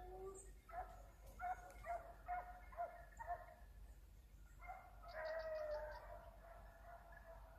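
Hunting dogs baying faintly: a string of short barks, then a longer drawn-out bay about five seconds in.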